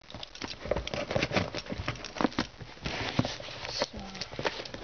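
A utility knife cutting into a tape-wrapped parcel, with irregular clicks, crinkles and taps from the blade, tape and cardboard as it is handled.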